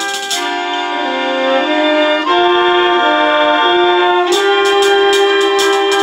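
Community concert band playing: woodwinds and brass hold sustained chords while the percussion drops out, then the drums come back in about four seconds in under a long held low note.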